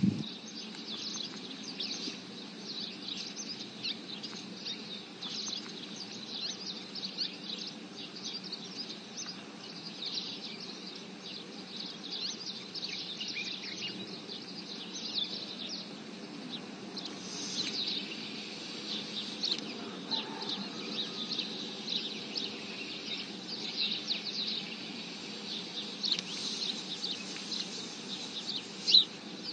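Small birds chirping: many short, high chirps in an irregular scatter throughout, over a faint steady background.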